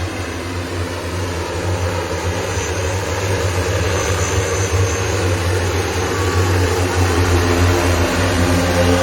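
The propellers of an 18-rotor electric passenger multicopter in flight, a steady low hum with a whir above it that slowly gets louder.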